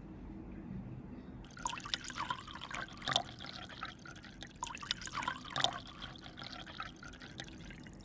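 Tea poured from a cocktail shaker through its cap into a glass of ice, starting about a second and a half in. The liquid splashes and trickles unevenly over the ice.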